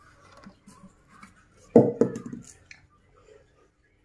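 A toddler knocking about in a wooden drawer: light rustling and small knocks, then two dull thumps about a quarter second apart a little under halfway through.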